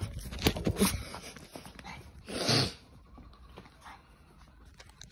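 Small Chihuahua-type dog greeting excitedly at close range: scuffling and clicks as it squirms on the sofa in the first second or so, then one short, sharp, breathy burst about halfway through.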